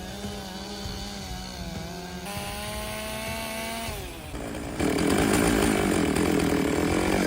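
A power saw runs with a steady motor whine. About five seconds in it gets louder and rougher as the blade cuts into wood.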